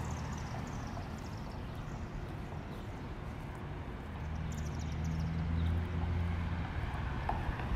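Street ambience: a steady low hum of vehicle engines that grows louder about halfway through, with a bird's quick descending run of short high notes at the start and again about halfway.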